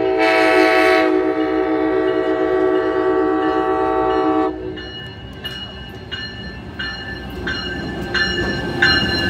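Amtrak Midwest Siemens Charger SC-44 diesel locomotive sounding one long horn blast of about four and a half seconds as it approaches a grade crossing. After the horn stops, a bell rings about twice a second over the growing rumble of the oncoming train.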